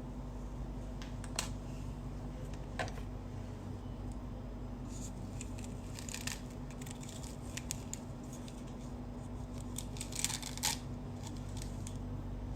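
Small objects being handled: scattered sharp clicks and light rattles, with a cluster of them near the end, over a steady low hum.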